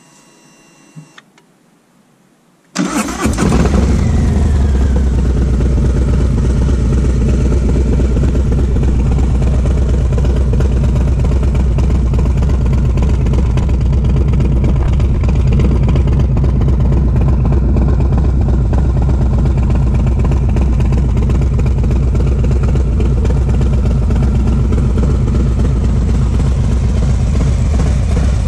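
2020 Harley-Davidson Low Rider S's Milwaukee-Eight 114 V-twin, breathing through a Red Thunder 2-into-1 exhaust, starting about three seconds in. It catches at once, runs a little higher for a second or two, then settles into a steady, loud idle with a deep low rumble.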